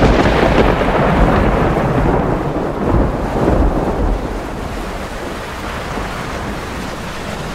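Thunderstorm sound effect: a rumble of thunder over rain, loudest for the first four seconds or so, then easing into steady rain.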